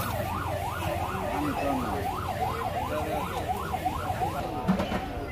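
A siren warbling quickly, its pitch rising and falling about three times a second, then stopping about four seconds in.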